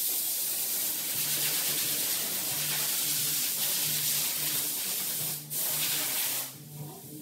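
Compressed air hissing from a hand-held air gun: one long blast that cuts off about five and a half seconds in, then a second short blast that stops a second later.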